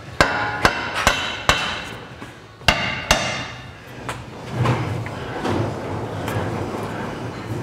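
Hammer blows on a replacement lower control arm of a 2003 Acura MDX, tapping it into its mounts. About six sharp, ringing metal strikes come in the first three seconds, then lighter, duller knocks.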